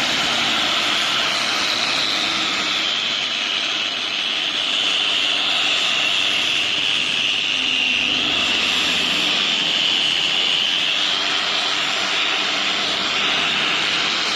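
Angle grinder fitted with a wire brush running continuously against metal to strip rust: a steady high whine over a rough scouring hiss, the pitch drifting slightly as the load changes.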